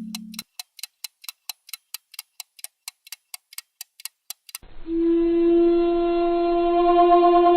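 Steady mechanical ticking like a clock, about four ticks a second, which stops after about four and a half seconds. Then a single sustained horn-like note comes in and holds steady.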